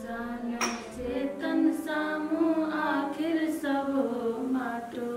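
Voices singing a slow devotional bhajan with long, held notes, over a steady low drone.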